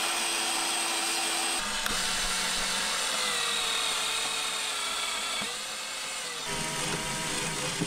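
Cordless drill-driver running, driving screws to fix metal battery clamps to a plywood floor panel; a steady motor whine whose pitch shifts a few times, with a click near the end.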